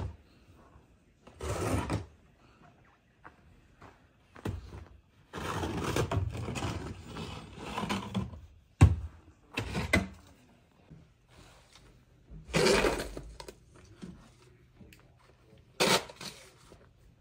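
Snow shovel scraping through snow in separate strokes, one of them long, with a sharp knock about halfway through.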